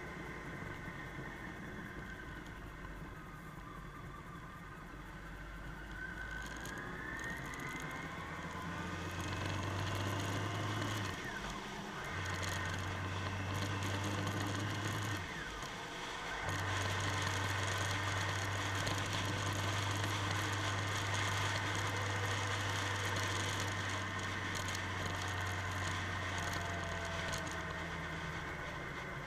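Motorcycle engine running under way, its pitch rising as it accelerates, with two brief dips in the engine note about 11 and 15 seconds in.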